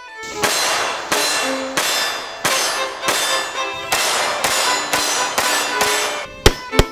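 A series of loud, evenly spaced crashing, clanging hits, about one and a half a second, over background music. Near the end come a few sharp, very loud cracks.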